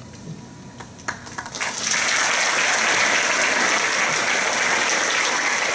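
Audience applauding: a few scattered claps at first, building about two seconds in to steady, full applause.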